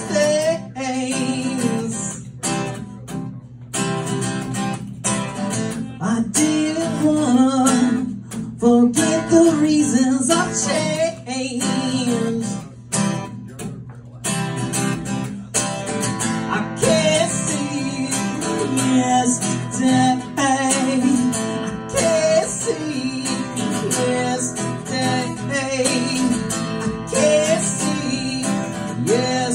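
A man singing to his own strummed acoustic guitar in a live solo performance, with a few brief stops in the playing.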